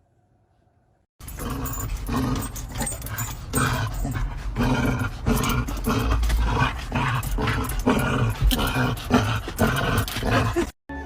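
A dog giving loud, repeated calls, about two a second, starting about a second in and cutting off just before the end.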